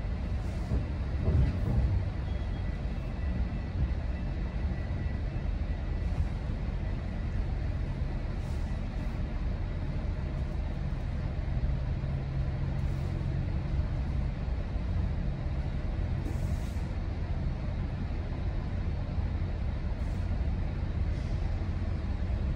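GO Transit commuter train heard from inside a passenger coach: a steady low rumble with a faint hum.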